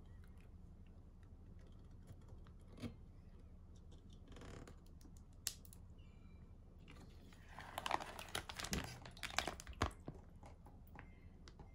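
Ziploc plastic bag crinkling and water sloshing as hands press the bag down in a pot of water to squeeze the air out, the water-displacement way of vacuum-sealing it. About eight seconds in, a louder run of crinkling, clicks and splashes as the bag is handled and lifted out dripping.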